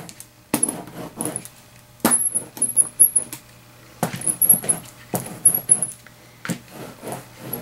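Rubber brayer loaded with acrylic paint rolled back and forth across a paper page in several quick passes, a rolling, rasping noise with faint squeaks.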